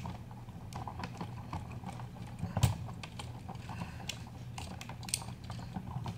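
Scattered small clicks and handling noises as wires are twisted and pulled out of the old outlet's push-in terminals, with one sharper click about two and a half seconds in.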